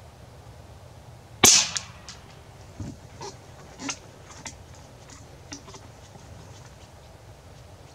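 A single shot from a Fox P10 PCP bullpup air rifle: one sharp crack about a second and a half in, followed by several much quieter clicks over the next few seconds.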